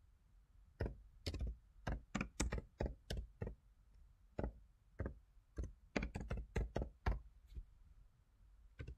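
Typing on a computer keyboard: about twenty irregular keystrokes in two quick runs with a short pause between them, and one last keystroke near the end.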